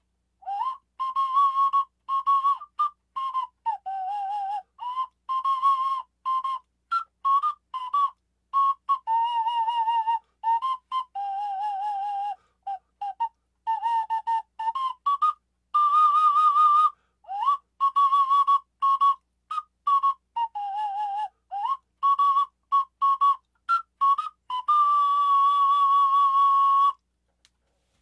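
Homemade Q-whistle, a one-octave whistle made from a short length of water pipe, a plastic plate and a straw, playing a tune: many short separated notes with vibrato, some sliding up into pitch. It ends on a long held note of about two seconds that stops suddenly.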